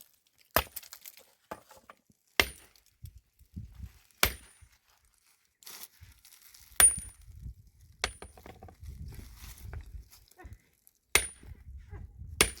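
Seven sharp blows of a metal tool on wood, about one every two seconds, several leaving a brief high metallic ring: work on a wooden chicken shelter, hammering or chopping.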